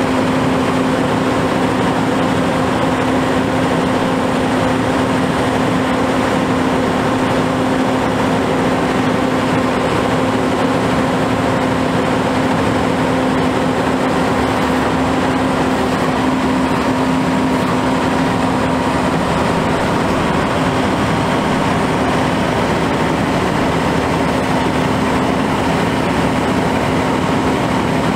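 The Cummins ISM diesel engine of an Autocar Xpeditor grapple truck running steadily at idle, with a steady humming note through it.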